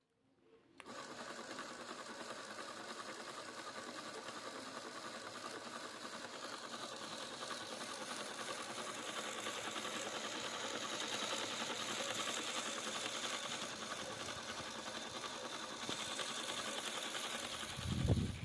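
Handmade 4WD RC car's small electric motor and gear drive whirring steadily, starting about a second in, with a low thump near the end.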